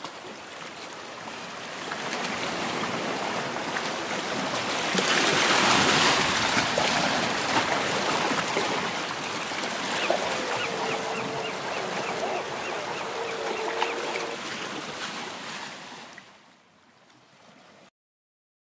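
Small waves washing up on a sandy beach, the surf swelling about five seconds in and then fading out near the end. A faint wavering tone with light ticking sounds partway through.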